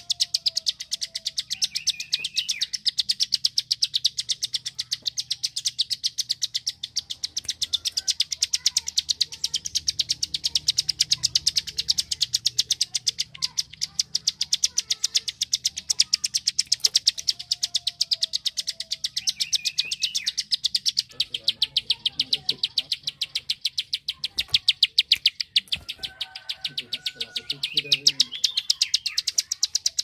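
A prinia giving its rapid 'klik' call: a fast, unbroken run of sharp, dry clicks. A few short chirping notes are mixed in over the clicks.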